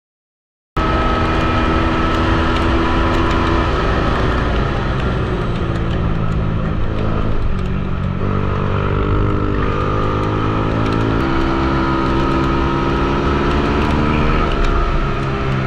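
After a moment of silence, an Ohvale minibike engine runs hard on track, revs climbing and dropping several times as the rider works the throttle and gears, with wind rushing over the onboard microphone.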